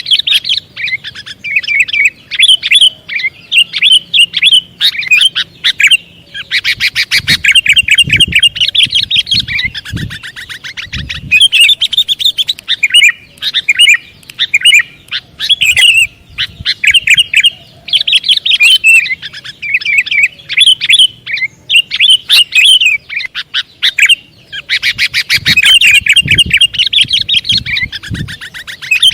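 Sooty-headed bulbul (kutilang) calling: rapid, chattering chirps in long runs broken by short pauses.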